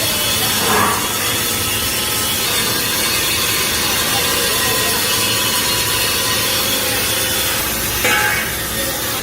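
Steady, harsh shop noise of steel being worked by a machine, with brief sharper scrapes about a second in and near the end.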